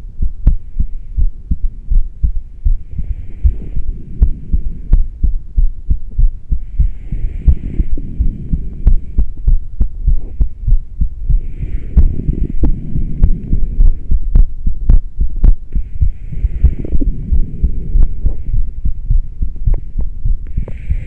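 A person's heartbeat, beating in a fast, steady train of deep pulses, recorded after about ten minutes of rebreathing air from a plastic bag through a straw with no fresh air. A soft rushing breath comes every four to five seconds.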